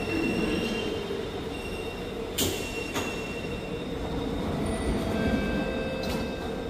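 Alstom Movia R151 metro train standing at the platform with a steady hum while its doors and the platform screen doors slide open, with sharp clunks about two and a half and three seconds in and another near the end.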